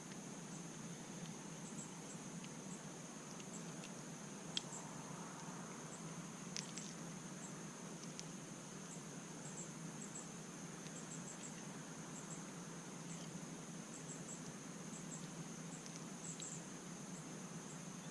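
Faint steady insect chirping, high-pitched and repeating, with two small clicks about four and a half and six and a half seconds in.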